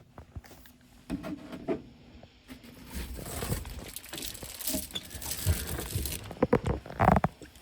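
Close rustling and crinkling of things being handled, with scattered light knocks. A hissing rustle runs from about three to six seconds in, and a few sharper knocks come near the end.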